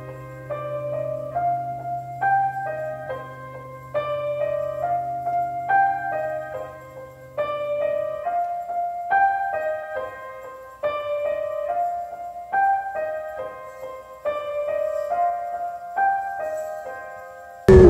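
Piano music playing a repeating broken-chord figure, over a held low note that drops out about halfway through. A loud rush of noise cuts in at the very end.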